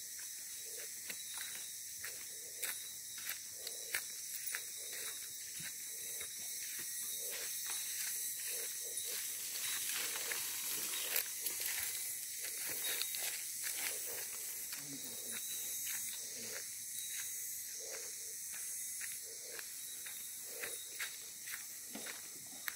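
Footsteps of someone walking over grass and dry leaves, with irregular crunches, clicks and soft knocks, over a steady high hiss.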